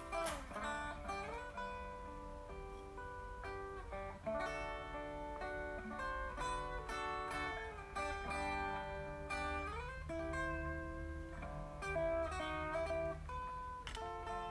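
Background music: acoustic guitar playing a plucked melody, with a few notes sliding up in pitch.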